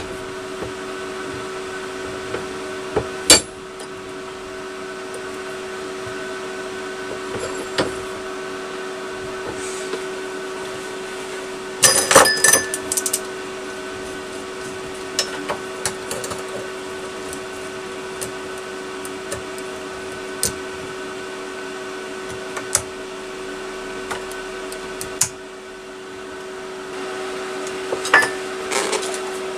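Welding a steel exhaust baffle seam by fusing the joint with a little filler rod: a steady electrical hum, broken by a few sharp clicks and taps, with a cluster of them about twelve seconds in and another near the end.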